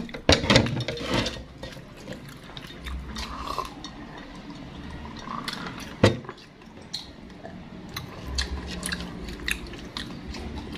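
Close-up eating sounds: chewing and small clicks and taps from bamboo skewers, a plastic platter and a plastic drink bottle being handled. There is one sharper knock about six seconds in.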